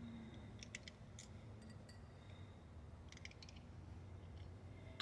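Faint clicks and light metal ticks from a screwdriver working the small screws out of a hose mender clamp, in a few short clusters.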